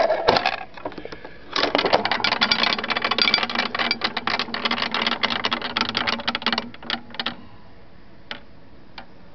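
1957 Twyco penny-operated dice trade stimulator being played: a few sharp clicks as the mechanism is worked, then about five seconds of fast rattling clatter as the dice tumble, ending in a few separate clicks as they settle.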